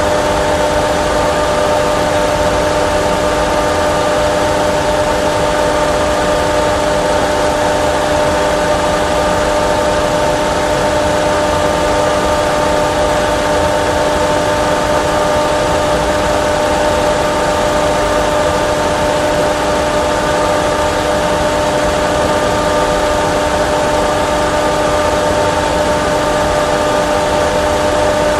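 Steady simulated jet engine and airflow noise inside a Boeing 737 Classic full flight simulator cockpit on a single-engine approach: an even rushing noise with several unchanging hum tones over it.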